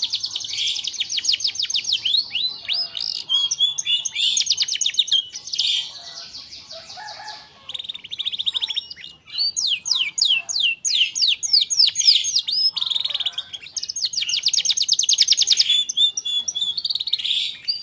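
Domestic canary singing a long, continuous song of rapid trills and rolls, with a brief pause about halfway through.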